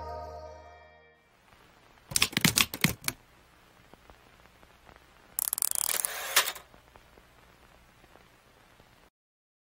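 Background music fading out, then a quick cluster of sharp clicks about two seconds in and a second, hissier burst of clicks about five and a half seconds in.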